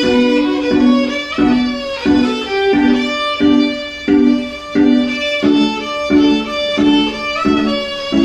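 Instrumental music: a melody of evenly spaced notes, each struck sharply and then fading, about three notes every two seconds.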